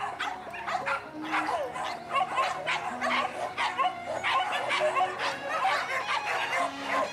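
A pack of leashed boar-hunting dogs barking and yelping together, many short overlapping barks in quick succession.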